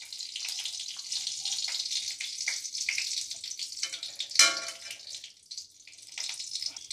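Ghee sizzling and crackling as it melts in a hot aluminium kadai, with a metal spatula striking the pan once about four seconds in with a short ring; the sizzle then dies down.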